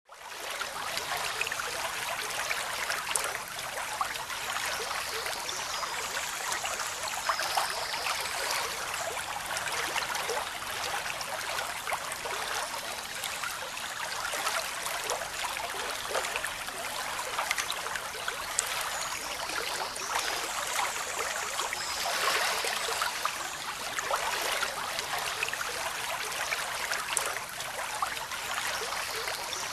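Steady running, trickling water, a continuous rushing with fine crackles.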